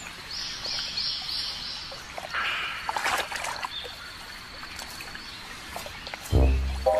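Mudflat ambience: a bird chirps five times in quick succession, a thin steady high tone holds for a few seconds, and water trickles and splashes lightly. A deep low thud comes near the end.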